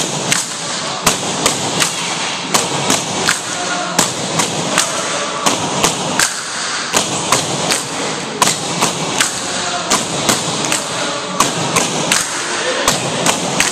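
Tinikling poles knocked on a wooden gym floor and clapped together in a steady rhythm, sharp knocks about two to three a second, falling into the dance's pattern of two taps on the floor and one close.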